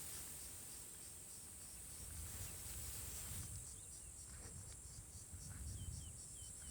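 Insects trilling in a steady, high-pitched, continuous chorus, with a few faint short chirps near the end over a low rumble.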